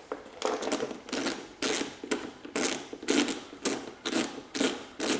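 Hand ratchet wrench clicking in repeated strokes, about two a second, undoing small 8 mm bolts.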